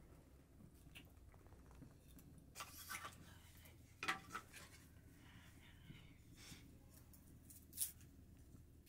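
Faint handling sounds of hands working raw minced meat in a metal bowl, with a few brief sharper noises, the loudest about four seconds in and near the end.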